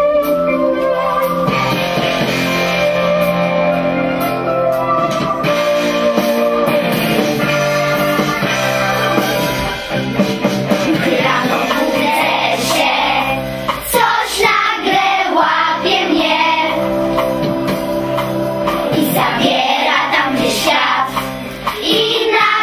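Song with instrumental backing music, which a group of young children sings along to from about ten seconds in.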